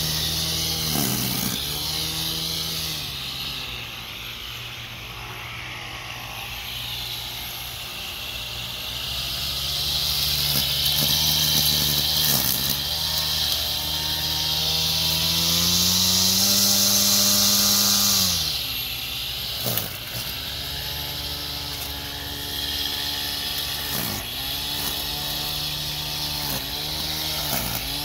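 A 2.2 kW brushless outrunner RC airplane motor (320Kv 5065, on a 6S LiPo) spins a grass trimmer's cutting head with a whine. Its pitch rises and falls with the throttle, climbs highest past the middle and then drops sharply, and dips briefly several more times.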